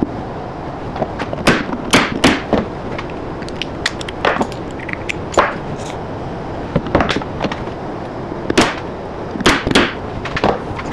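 Trim strip being stapled onto the front of an OSB nesting box: about a dozen sharp, irregular strikes into the wood over a steady background noise.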